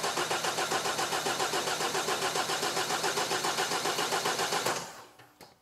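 Opel/Vauxhall diesel engine cranking on its starter motor with an even, rapid chugging rhythm, then winding down about five seconds in. With the injector high-pressure pipes left loose to bleed air and fuel out, the rail cannot build pressure, so the engine turns over without firing.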